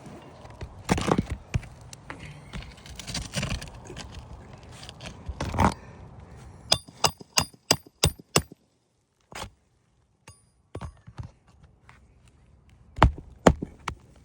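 Roofing work on asphalt shingles: a roof snake scrapes as it is worked under the shingles, then a quick run of about seven sharp metallic hammer taps, and two more hard strikes near the end.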